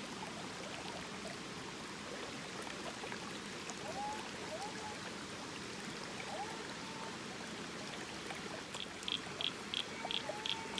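Water running steadily from the waterfall into the pond. Near the end a quick run of short, high-pitched pips, about three a second, comes in over it.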